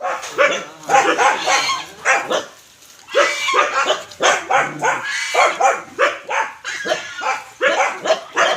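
A rapid series of short, loud animal calls in quick clusters, with a brief pause about two and a half seconds in.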